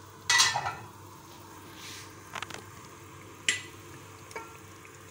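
Onion and tomato masala sizzling in oil in an aluminium pan while it is stirred with a spatula, with the tomatoes cooked down until tender. A loud metal clatter comes about half a second in, and a few short sharp knocks of the spatula on the pan follow.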